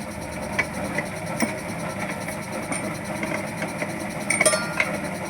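An engine idling steadily, with a few sharp metallic clinks, the loudest and most ringing about four and a half seconds in.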